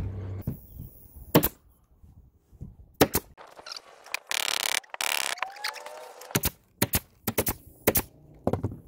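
Pneumatic carpet stapler firing staples through carpet into plywood: sharp single shots, then a quick run of about six near the end. Carpet rustles as it is shifted in between.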